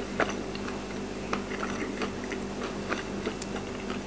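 Faint, scattered crackly clicks from eating crispy fried chicken, about one a second, over a steady low hum.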